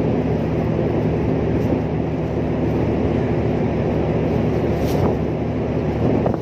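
Large ship's machinery running with a steady low drone, mixed with wind on the microphone. There is one short sharp click about five seconds in.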